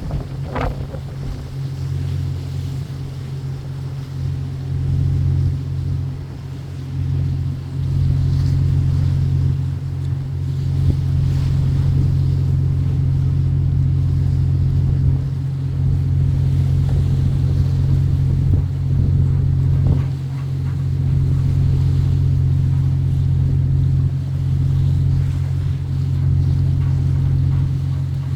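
A boat's engine giving a steady, unchanging low drone, with wind buffeting the microphone and the wash of the sea.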